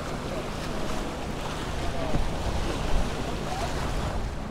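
Sea surf washing against the granite jetty rocks, with wind buffeting the microphone and a steady low hum underneath. A single knock sounds about three seconds in.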